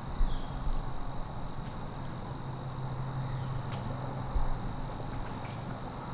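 Woodland ambience: a steady high-pitched whine over a low, steady hum like distant traffic, with a few sharp clicks, about two seconds apart.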